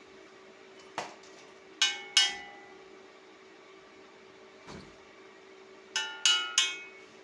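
Hammer blows on steel, each one ringing out: a pair of loud strikes about two seconds in and three more in quick succession near the end, with lighter taps between, over a steady low hum.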